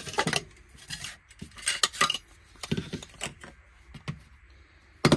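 Nested aluminium cook-kit pieces and a brass alcohol burner clinking and knocking together as they are lifted out of the pot and set down, a string of light clatters with a sharper knock near the end.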